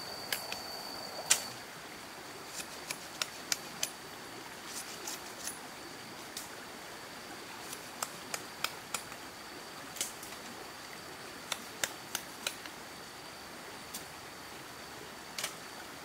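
Scattered sharp knocks and clicks, often in quick runs of three or four, the loudest about a second in, over a steady high whine.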